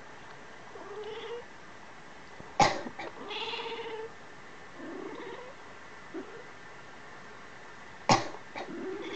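A person coughs sharply twice, about five seconds apart, and each cough is answered right away by a cat's meow. The cat also gives two or three shorter meows in between.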